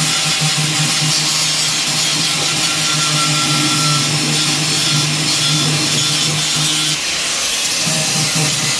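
Electric arc welding on steel: a continuous hissing crackle over a steady electrical hum, which breaks off briefly about seven seconds in and then starts again.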